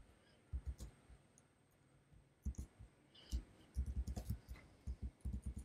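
Faint keystrokes on a computer keyboard, typed in short clusters with pauses between.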